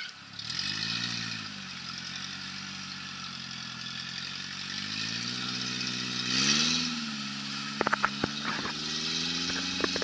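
Engine of a modified Suzuki Sidekick off-road vehicle revving up and down under load as it climbs out of a water-filled ditch, rising sharply about six seconds in and then holding a steady note. A quick cluster of sharp knocks comes about eight seconds in.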